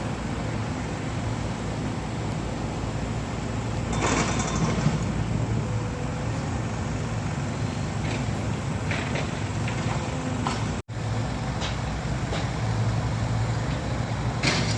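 Diesel engine of construction machinery running steadily, a low rumble with a few brief louder noisy bursts. The sound cuts out for an instant about eleven seconds in.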